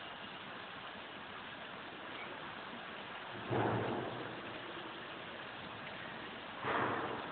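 Steady hiss of rain, with two sudden louder rushes, one about halfway through and one near the end, each fading away within about a second.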